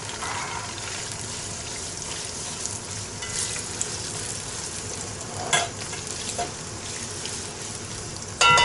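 Carrots frying in oil in a kazan: a steady sizzle with a few clicks and scrapes of stirring. Near the end comes a loud metallic clang that rings on.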